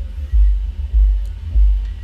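Background music with a steady, deep bass beat.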